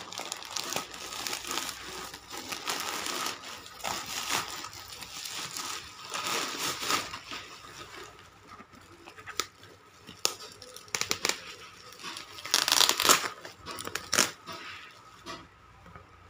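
Plastic courier mailer being torn open and its inner plastic and bubble-wrap packing crinkled by hand. The crinkling is steady for the first half, then breaks into scattered crackles, with the loudest burst about three-quarters of the way through.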